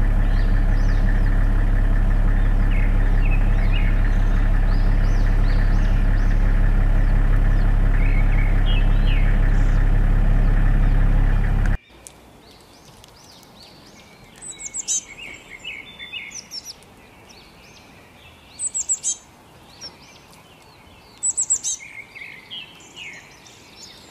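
A loud steady drone with faint bird chirps over it cuts off suddenly about halfway through. Small songbird calls and chirps follow over a quiet background, coming in short bouts, with the loudest a few seconds before the end.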